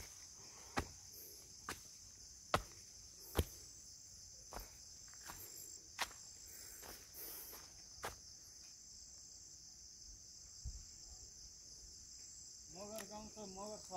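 Insects chirring in a steady high-pitched drone, with several sharp clicks scattered through the first eight seconds.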